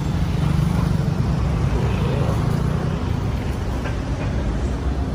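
Roadside traffic: motor scooter engines passing close in the first couple of seconds, over steady road noise from passing cars.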